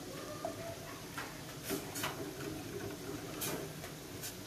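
A metal ladle clicking a few times, irregularly, against a small stainless-steel pot while stirring coconut milk thickened with tapioca starch.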